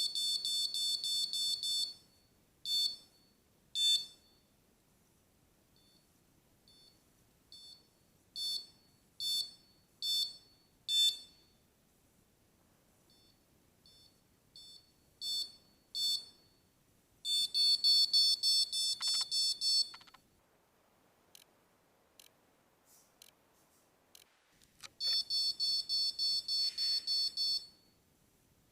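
Bank Watcher XT1 motion-detector alarm beeping with short, high-pitched electronic beeps, sometimes single and sometimes in rapid runs of three or four beeps a second lasting about three seconds: the alarm going off.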